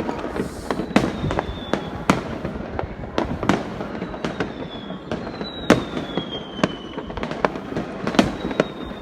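Aerial fireworks bursting: a run of sharp bangs at irregular intervals over a continuous rumble of more distant bursts, with a few thin whistles that fall in pitch.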